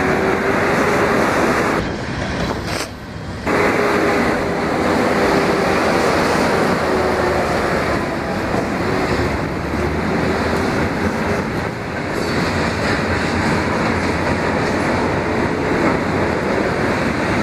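Freight train of covered hoppers and tank cars rolling past a road crossing: a steady, loud rumble of wheels on rail. A faint wavering tone comes and goes.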